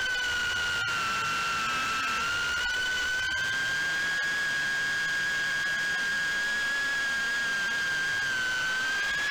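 FPV quadcopter's brushless motors and propellers whining at a steady high pitch. The pitch dips slightly about a second in and rises near the end as the throttle changes.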